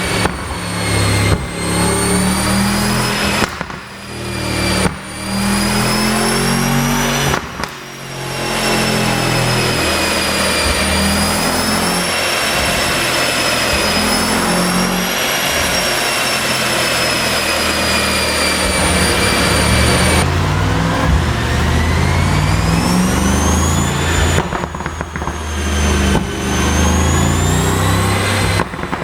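Mercedes-AMG S63's twin-turbo V8 revving, its pitch climbing and falling with long held stretches and several brief, sudden drops where the throttle is lifted. The exhaust has been tuned for pops and crackles.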